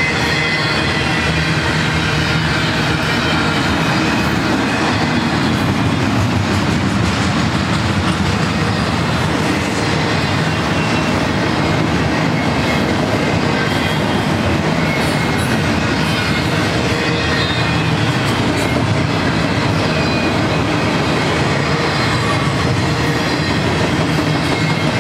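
Double-stack intermodal container train's well cars rolling past: a steady rumble of steel wheels on rail, with faint high-pitched wheel squeal near the start and again midway.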